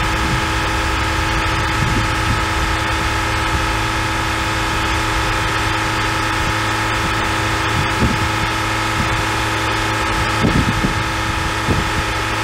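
A vehicle engine idling steadily with a constant hum, with a few short soft thumps in the last few seconds.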